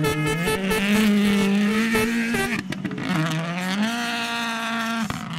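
Ford Puma Rally1 rally car's turbocharged four-cylinder engine running hard past on a gravel stage. The revs dip briefly about halfway through, then climb again and hold.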